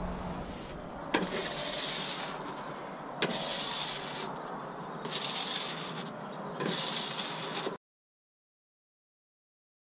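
A window-cleaning strip washer scrubbed across door glass in four swishing strokes, each starting with a light tap. The sound cuts out completely about two seconds before the end.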